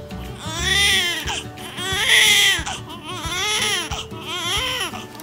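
Newborn baby crying, about four wails in a row, each rising and then falling in pitch.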